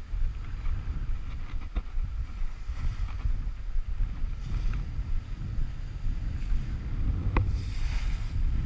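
Wind buffeting the action camera's microphone in a steady low rumble, with sea surf washing against the rocks below. A sharp click comes about seven seconds in.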